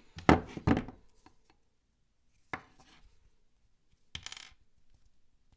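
Hand crimping tool squeezing down on a wire crimp terminal: two sharp metallic clicks in the first second, another single click about two and a half seconds in, and a short scraping rustle about four seconds in.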